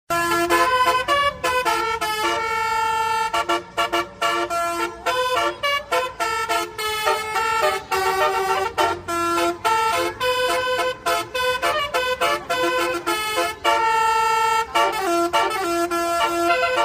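Bus 'telolet' basuri multi-tone horn playing a fast melody of short horn notes, with a few longer held notes about two to three seconds in and again near the end.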